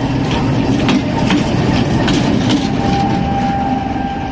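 GKD1 diesel shunting locomotive running past at close range: steady engine and wheel noise with a few sharp clicks over the rails. About two-thirds of the way through, a steady high tone joins in.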